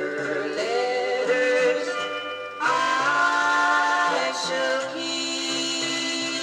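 A 7-inch single playing on a Philips GA308 turntable: a wordless stretch of the song, with held notes that slide in pitch and get louder a little under halfway through.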